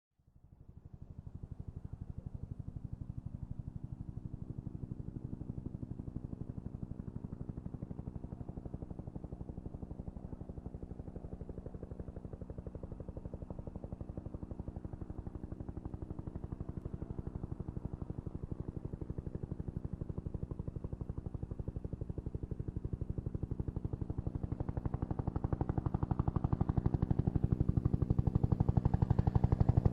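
Helicopter in flight: the rotor blades beat in a rapid, even chop over a steady drone. It fades in at the start and grows steadily louder over the last several seconds.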